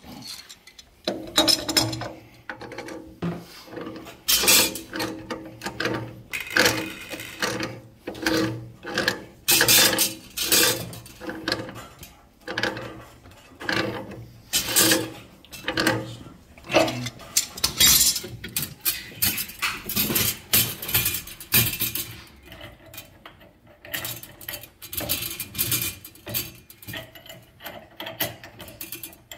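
Metal tools and threaded pipe fittings clinking and rasping in quick, uneven strokes as gas line joints are tightened.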